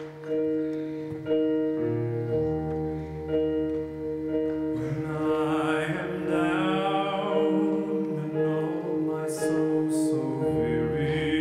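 Orchestra playing the slow introduction to a ballad: long held chords, with a wavering melody line coming in over them about five seconds in.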